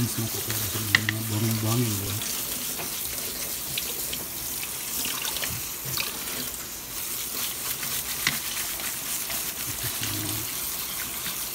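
Tap water running into a plastic colander of chopped taro leaves as they are rinsed at a sink: a steady splashing hiss, with a few light knocks.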